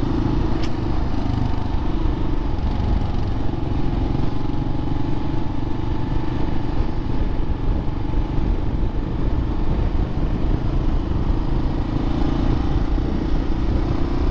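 Motorcycle engine running steadily at cruising speed, heard from the rider's own bike, with wind and road noise.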